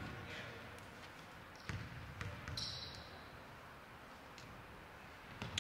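A basketball bounced a few times on a hardwood gym floor, separate thuds over the faint murmur of a hall, with a brief high squeak near the middle.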